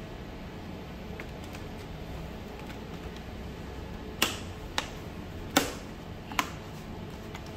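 Four sharp plastic clicks over about two seconds, the second and fourth lighter, from handling the opened laptop's case and parts.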